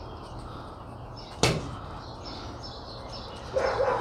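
Quiet outdoor background with faint bird chirps. One sharp knock comes about a second and a half in, and a short pitched tone follows near the end.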